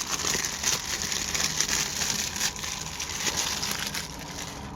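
Plastic wrapping crinkling as it is handled and pulled open, a dense crackle that eases off about four seconds in.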